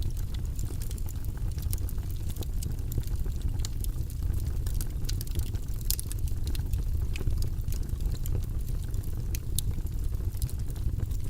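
Logs burning in a fireplace: a steady low rumble of the fire with many small, irregular crackles and pops from the wood.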